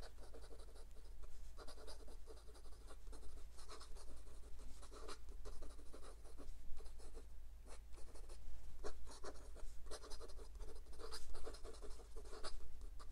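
Extra-fine steel nib of a counterfeit Lamy Dialog 3 fountain pen writing quick cursive on notebook paper: an irregular run of short scratching strokes. The nib writes wet and without skipping.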